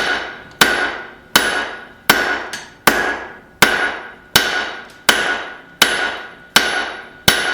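Hammer blows on hot high-carbon rebar over an anvil, forging the set-down for a tong jaw: a steady beat of about eleven strikes, roughly one and a half a second. Each strike rings and fades before the next.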